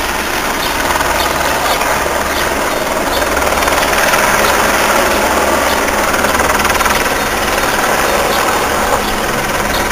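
Helicopter flying overhead, its rotor and engine making a steady drone.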